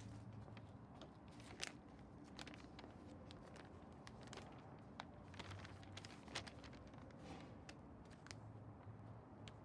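Faint crinkling and rustling of a handheld sheet of paper, with scattered sharp clicks.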